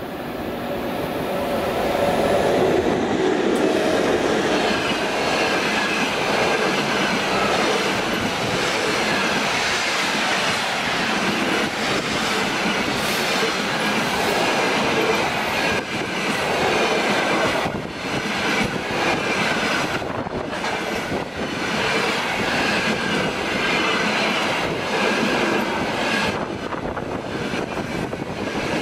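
A 2ES4K electric locomotive hauling a passenger train passes close by at speed. The sound builds over the first three seconds as the locomotive arrives, then stays loud as the coaches' wheels run past on the rails.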